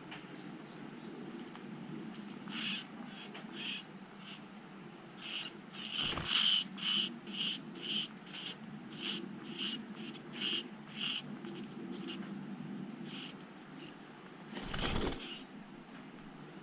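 Eastern phoebe nestlings begging: a long run of short, high calls, about two a second, with a brief rustle about six seconds in and another near the end.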